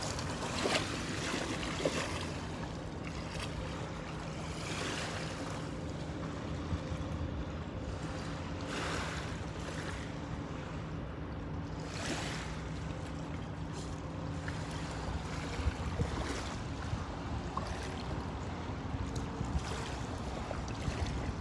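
Wind on the microphone and river water lapping around a man wading, with several brief rushing swells. A steady low hum runs underneath and stops about three quarters of the way through.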